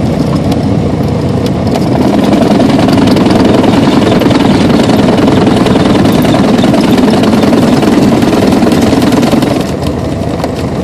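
Light aircraft's engine and propeller running steadily during landing, heard from inside the cockpit. The sound grows louder about two seconds in and drops back about a second before the end.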